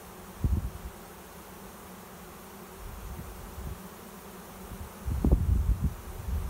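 A swarm of honey bees buzzing in flight, a steady hum of many bees. Low rumbles on the microphone come about half a second in and again near the end.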